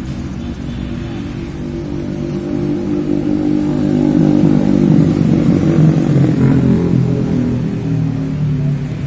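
A road vehicle's engine going by on the street close at hand, growing louder to a peak about halfway through and then fading.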